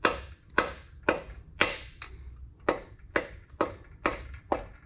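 Small tapper hammer tapping a piston down the cylinder bore of a 6.0 L LQ4 LS V8, about two sharp taps a second with a short pause about halfway through, each with a brief ring. The piston is being driven down until its connecting rod seats on the crankshaft journal.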